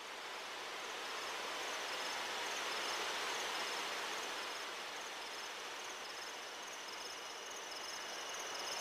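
Nature-sound ambience from a soundtrack: a steady rushing noise with faint, high, cricket-like chirping, swelling slowly in level.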